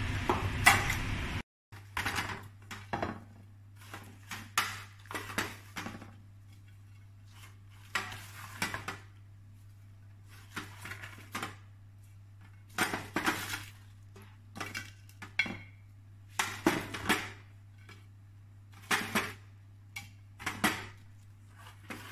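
Kitchen tongs clinking and scraping against a metal tray and a plate as pieces of fried calamari and vegetables are picked up and set down, in scattered short taps over a low steady hum. A louder stretch of noise cuts off abruptly about a second and a half in.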